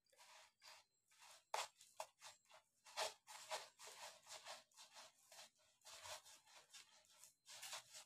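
Kittens pawing and scrabbling at a plastic ball-track toy: a faint run of quick, irregular scratches and rustles, the sharpest about a second and a half and three seconds in.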